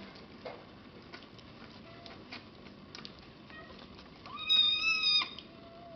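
A young bottle-fed kitten gives one loud, high-pitched meow lasting about a second, near the end. Faint clicks run throughout.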